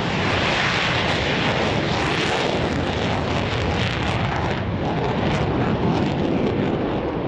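F-15 fighter jet's twin engines at takeoff power during the takeoff roll: a loud, steady jet roar.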